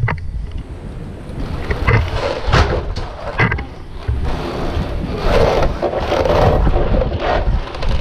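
A white vinyl fence gate swung shut, with a few sharp knocks and clacks as it closes and latches in the first few seconds. Then comes a stretch of steady scraping, rustling noise.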